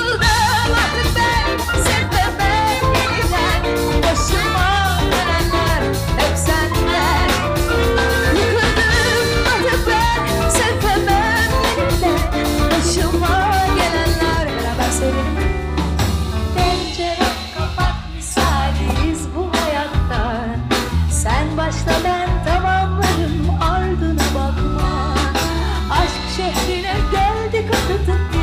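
Live pop band performing: a woman sings the lead melody into a microphone over bass guitar and drums.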